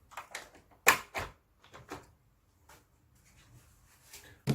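Sharp plastic clicks and knocks as an air conditioner's fan coil parts are pried loose with a flat-head screwdriver. The loudest snap comes about a second in, with a few lighter ticks after it and another knock near the end.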